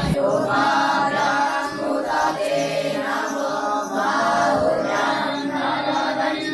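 Group of young Vedic students chanting Sanskrit Vedic verses in unison, one continuous recitation.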